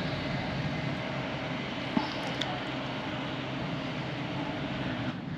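Steady outdoor background rush, heavier in the low range, with a faint steady hum and a small click about two seconds in. It eases slightly near the end.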